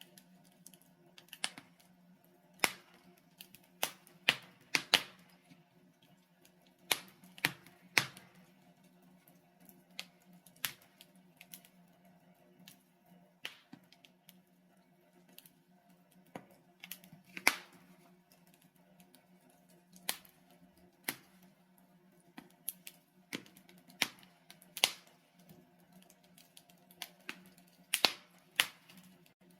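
Wood fire crackling: burning logs giving off irregular sharp pops and snaps, roughly one a second and sometimes two in quick succession, over a faint steady low hum.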